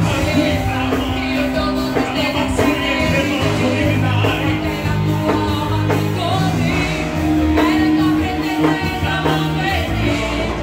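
Live worship band playing a rock-style gospel song with a steady drum beat and sustained keyboard and bass notes.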